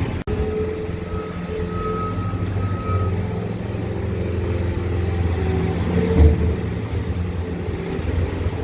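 A motor vehicle's engine running, with a steady low rumble.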